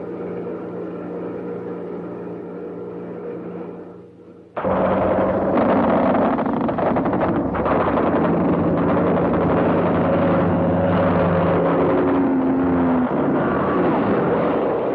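Propeller fighter plane's piston engine droning steadily and fairly quietly, then a sudden cut about four and a half seconds in to a much louder engine roar as the plane dives past, its pitch sliding down near the end.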